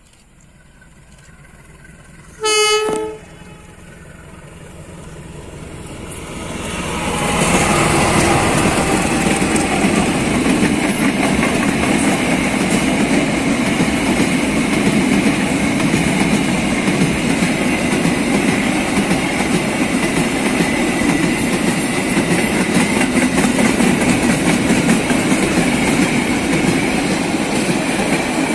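A short blast of a diesel locomotive horn about two and a half seconds in, then a freight train of CC201 and CC203 diesel-electric locomotives hauling tank wagons approaches and passes close by, growing loud by about seven seconds in. The wagons then roll past steadily with a rapid wheel clatter over the rail joints.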